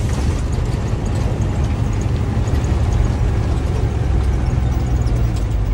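Truck engine running under way with a steady low drone, joined by road noise and faint rattling ticks.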